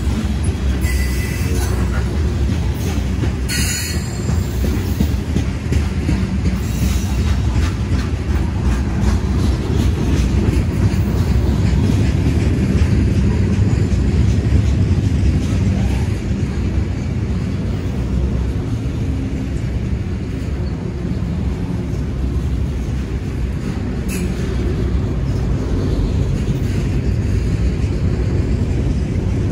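Freight train cars, covered hoppers then autorack cars, rolling past close by: a steady loud rumble of steel wheels on rail, with a few brief sharp high sounds in the first few seconds and once more about two-thirds of the way through.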